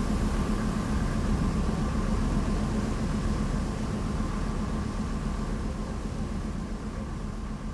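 Steady low drone and hiss of a vessel under way, its engine and churning wake, slowly fading out.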